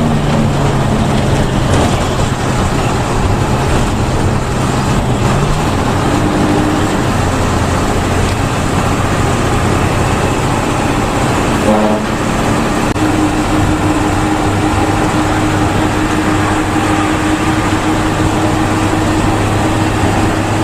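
A moving bus's engine drone and road noise, heard from inside the cabin. The engine note shifts upward about five seconds in, and a new steady note settles in a little past the middle.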